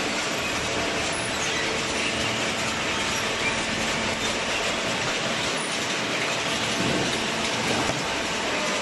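Hydraulic paper baler running: a steady mechanical noise with a faint underlying hum.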